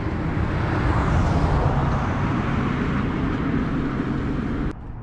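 A low rumble with a steady engine hum, the kind made by passing traffic, growing louder about a second in and cutting off suddenly near the end.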